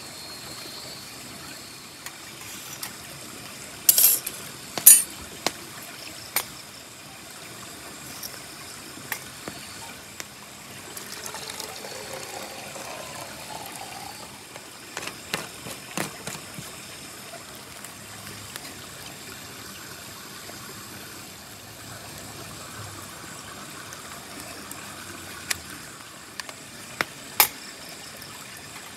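Metal pot and lid clinking a few times as they are handled on a wood-burning camp stove, then water poured from the pot into a plastic bottle for a few seconds, over a steady rush of flowing water.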